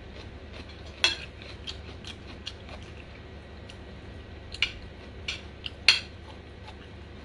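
Metal spoon and fork clinking and scraping against a plate as food is cut and scooped: a sharp clink about a second in, then several louder clinks between about four and six seconds in, the loudest near six seconds, with light ticks in between.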